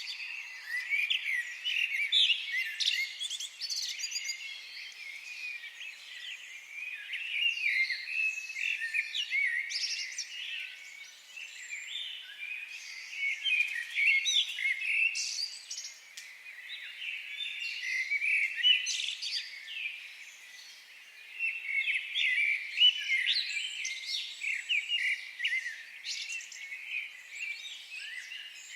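Many small birds chirping at once, a dense chorus of short high chirps and quick trills that swells and eases, with a brief lull about two-thirds of the way through.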